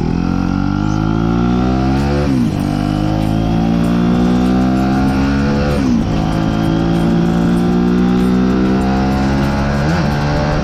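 Aprilia RS4 125's single-cylinder four-stroke engine accelerating through the gears. Its pitch rises steadily and drops sharply at three upshifts, about two, six and ten seconds in.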